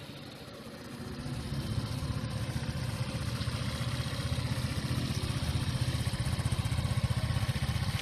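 Axxo Viper 180cc scooter engine running, a steady low pulsing note that grows louder over the first two seconds.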